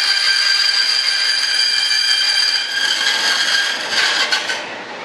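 Bandsaw cutting through a fiberglass-covered board: a steady whine with a hiss of cutting. Near the end a few sharp rattles as the cut finishes, then the saw runs on more quietly without load.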